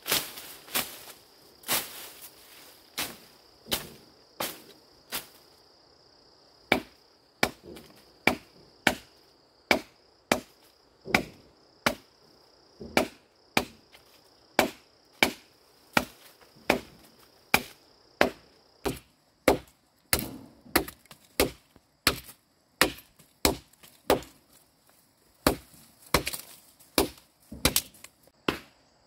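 A blade chopping into wood by hand in sharp, regular strokes, about one and a half a second, with a short pause about five seconds in. A steady insect drone runs underneath.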